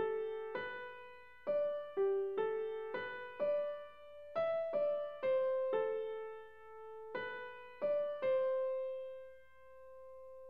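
Background music: a slow keyboard melody of single struck notes that ring and fade, ending near the end on a long held note.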